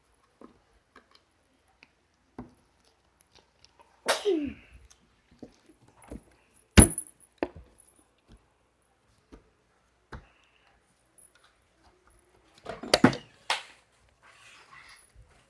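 Scattered clicks and knocks of plastic slime containers being handled and opened, with a sharp click about seven seconds in and a cluster of clicks near the end. About four seconds in, a short sound that falls in pitch.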